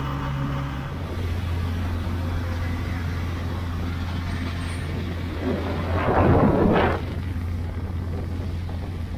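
Long-tail boat's engine running steadily under way, a low drone that steps up slightly about a second in. A brief, louder rushing noise comes about six seconds in.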